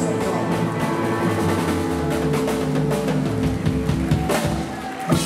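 Live rock 'n' roll band playing without vocals: electric lead guitar, double bass and drum kit. The sound dips briefly near the end, then a sharp hit lands just before it stops.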